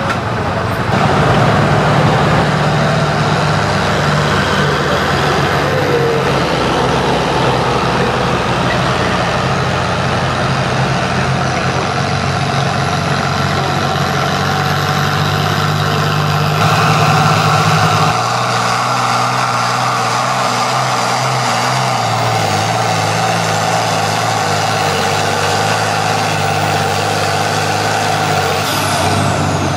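Farm tractor engines running hard under full load, pulling a weight-transfer sled: first a John Deere, then an International Harvester, with the engine note changing where one gives way to the other.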